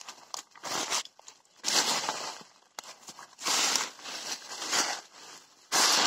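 Dry leaves crunching and rustling underfoot as someone scrambles up a rock slope, in irregular bursts about a second apart.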